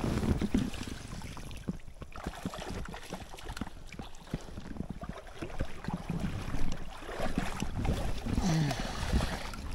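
Shallow stream water splashing and sloshing irregularly with small knocks, as a small hooked brown trout is drawn in and handled in the water.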